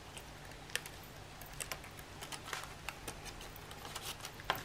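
Light, irregular clicks and taps of craft materials being handled on a desk, over a faint steady hum.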